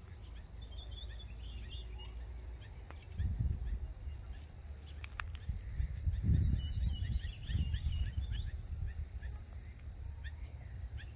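A steady, high-pitched insect drone, with gusts of wind rumbling on the microphone about three seconds in and again around the middle, and a few faint bird chirps.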